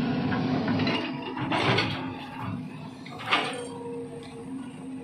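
Volvo crawler excavator's diesel engine running with a steady drone. A rising whine comes about a second and a half in, and a sharp knock just after three seconds.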